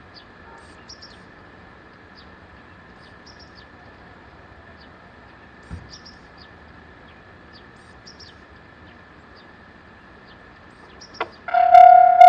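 Small birds chirping now and then over quiet outdoor ambience, then about eleven seconds in a Japanese level crossing's electronic warning bell starts up loud, an unusual-sounding bell ringing about twice a second.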